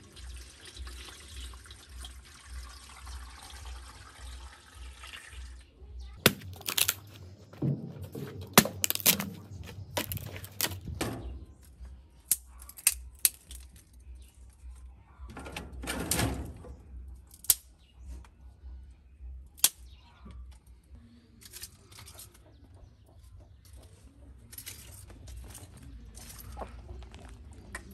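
Water poured from a plastic jug into a metal cooking pot, running steadily for about six seconds. Then a scattered series of sharp cracks and knocks as dry sticks are snapped and laid between the stones of a three-stone fire.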